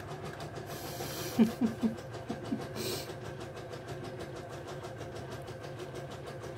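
Cavalier King Charles spaniel puppies eating dry kibble from a ceramic plate. About a second and a half in comes a quick run of about five short, low sounds, with brief hissy noises before and after. A steady mechanical hum with a fast, even pulse runs underneath.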